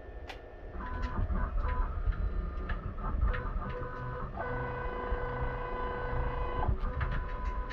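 CNC lathe axis drive motors whining as they move the tool during an automatic tool touch-off cycle. First comes a series of short stop-start moves with clicks, then one longer steady move from about four and a half seconds in that stops about two seconds later.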